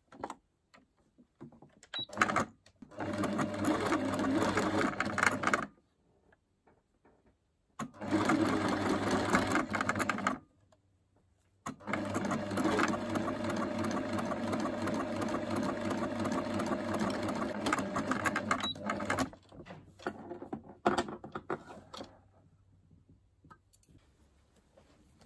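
Electric household sewing machine stitching in three runs: a run of about three seconds, a shorter one of about two and a half seconds, then a longer run of about seven seconds, with short bursts of a few stitches just before the first and after the last.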